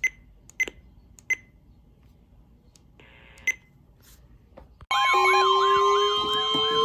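A few short, high beeps and a brief hiss of static, then, about five seconds in, a loud layered alarm starts suddenly: a wailing siren sweeping up and down about twice a second over several steady alarm tones and a slowly rising lower tone.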